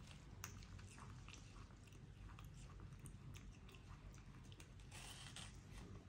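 Baby monkey eating watermelon: faint wet smacking and crunching clicks as it bites and chews the juicy flesh, with a brief hiss about five seconds in.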